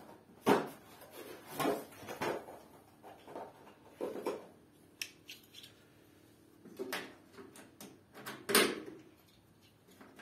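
Plastic terminal blocks being handled and clicked onto a steel DIN rail: irregular sharp clicks and clacks, about six louder ones with lighter ticks between.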